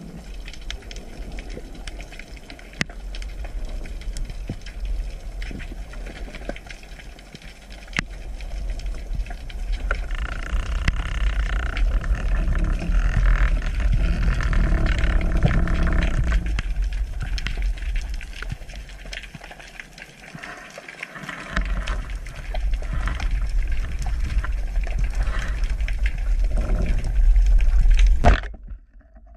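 Underwater sound picked up by an action camera in its housing while diving: a steady low rumble of moving water with scattered small clicks. It swells in the middle and stops abruptly near the end.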